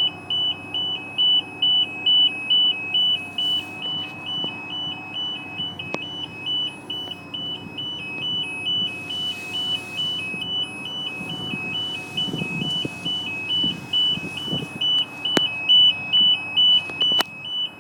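Two-tone electronic alarm, alternating between two high pitches with each tone held about a fifth of a second, running without a break. A fainter steady machine hum sits underneath.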